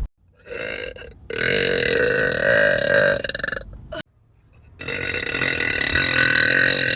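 A woman's belches, slowed down: a short one, then two long drawn-out ones with a brief silence between.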